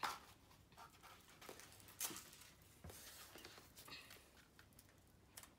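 Hard plastic egg-shaped packaging being pried open by hand: a sharp plastic click at the start and another about two seconds in, with faint handling rustles and ticks between.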